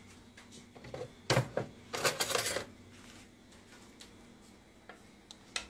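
Handling noise close to a phone's microphone: a knock about a second in, then a brief burst of clattering rattles, and a couple of faint clicks near the end.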